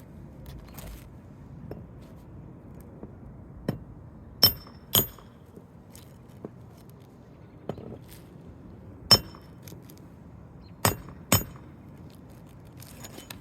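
Sharp metallic clinks of a hammer striking a Roof Snake shingle-removal tool to pull roofing nails from under the shingles, about seven strikes, several in quick pairs, each with a brief ring.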